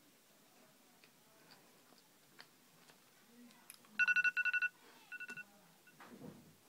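Digital timer beeping: a fast run of about six high electronic beeps, then three more after a short pause.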